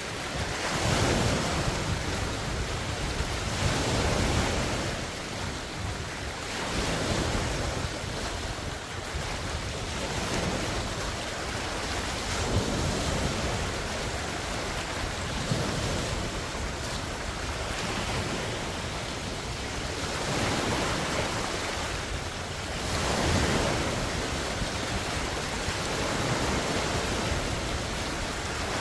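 Large wind-driven lake waves breaking and washing ashore in a steady rush, with swells every couple of seconds. Strong wind is blowing across the microphone.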